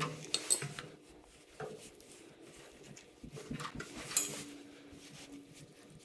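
Metal clinks and scrapes of an open-end wrench working the brass fittings under a gas water heater's control valve, with the sharpest clinks about half a second in and again around four seconds in.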